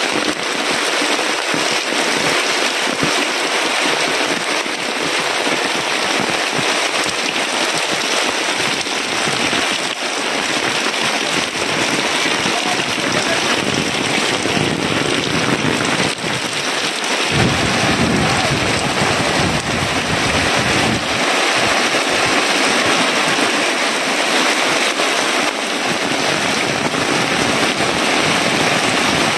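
Heavy rain falling steadily, hissing on the ground and pouring off the edge of a roof. A bit past the middle, a low rumble joins in for about four seconds.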